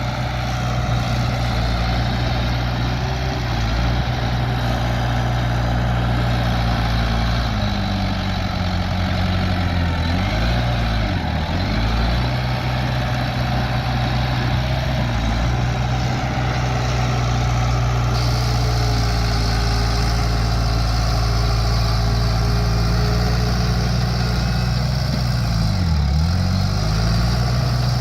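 Bulldozer's diesel engine running steadily. Its engine speed dips and climbs back twice, once about a third of the way in and again near the end.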